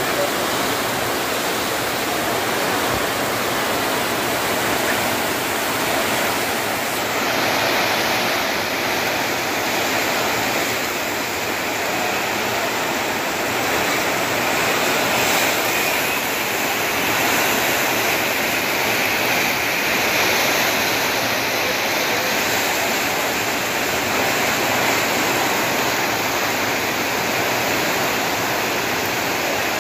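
Heavy rain falling steadily: the dense, even hiss of a downpour on roofs, pavement and puddles, with water pouring off roof edges.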